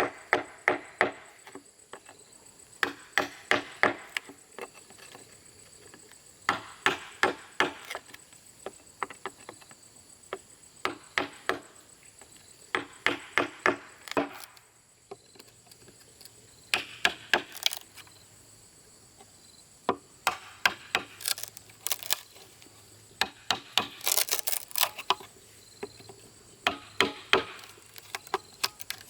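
Hand tool striking bamboo in bursts of four to six quick, sharp blows, the bursts repeating every few seconds with short pauses between.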